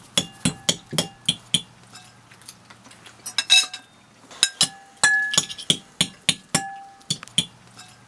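Metal spoons and forks clinking against plates and glass jars as several people eat: an irregular run of sharp clinks, some ringing briefly.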